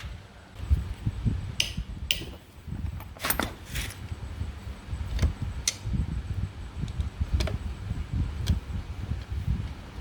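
Scattered metallic clicks and taps, about a dozen spread unevenly, of hand tools and metal parts being handled during motorcycle repair work, over a low uneven rumble.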